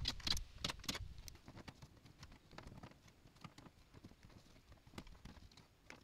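A few light clicks and knocks from tools being handled, bunched in the first second, then only faint scattered taps.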